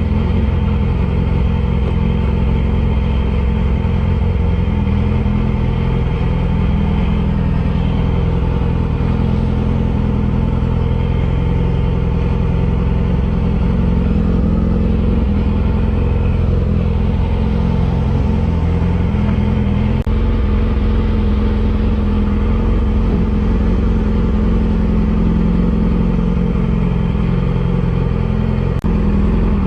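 A sport motorcycle engine running at a steady speed on the road, its note holding nearly level throughout.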